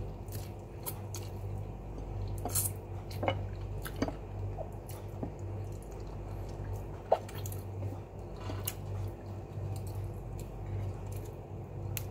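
Close-up eating sounds: biting, chewing and sucking on a piece of chicken adobo held in the fingers, with wet smacks and scattered sharp clicks. A steady low hum runs underneath.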